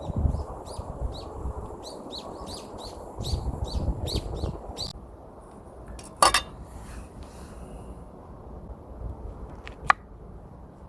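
A small bird calls in a quick run of short, high chirps, several a second, for about five seconds over a low wind rumble. About six seconds in comes one loud, sharp clink that rings briefly, and a shorter click follows near the end.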